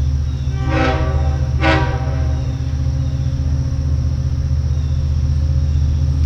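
A Long Island Rail Road DM30AC diesel train pulling out of a station, with a loud steady low engine rumble. Two short horn blasts sound about a second apart, near the start.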